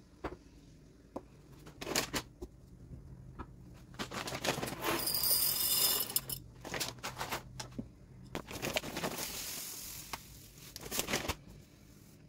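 Empty glass mason jars clinking as they are handled and set down on a stone counter, then coffee beans pouring into a glass jar for about two seconds, the loudest part. Later a fine granular dry food streams into another glass jar for a few seconds.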